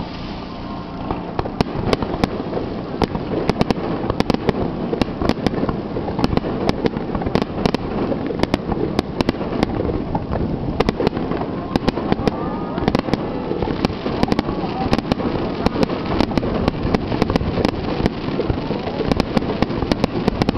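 Fireworks finale: a dense, rapid barrage of bangs and crackles, with many shells bursting in quick succession. The barrage picks up about a second and a half in.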